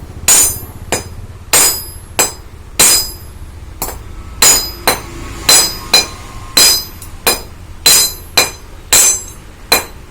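A steady series of light hammer blows on metal, roughly one every half second, each with a short metallic ring. A part of a Bajaj Discover 150 motorcycle is being tapped to make it sit tight.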